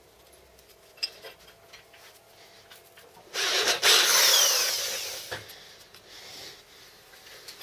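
Electric drill with a step drill bit drilling into a thin steel piece clamped in a vise, running for about two seconds in the middle before dying away. A light click about a second in.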